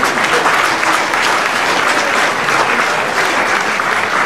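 Theatre audience applauding: many hands clapping in a dense, even stream at a steady level.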